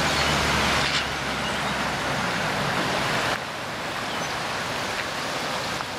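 Swollen, fast-flowing floodwater in a river, a steady rushing noise that drops abruptly in level about a second in and again after three seconds. A low engine hum from a car on the road sits under it for the first second.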